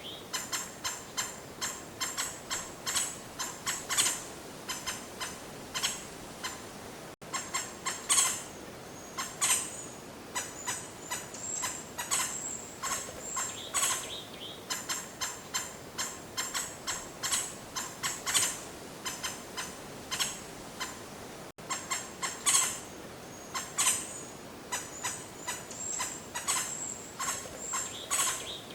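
Birds chirping in quick, high-pitched calls, one after another in a dense run, with two momentary breaks.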